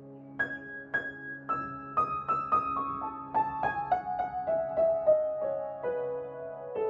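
Background piano music: a melody of single struck notes stepping downward in pitch over a held chord.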